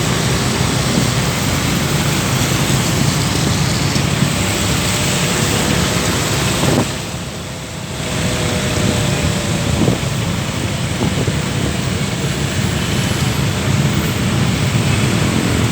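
Steady rain mixed with road traffic noise: a dense hiss with a low vehicle rumble, dipping briefly about seven seconds in.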